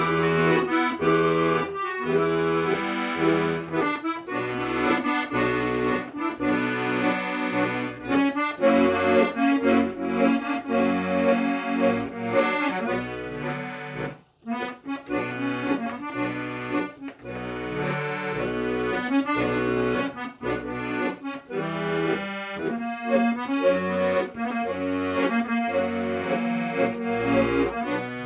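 Accordion music: a melody played over a steady, rhythmic bass-and-chord accompaniment, with a brief break about halfway through.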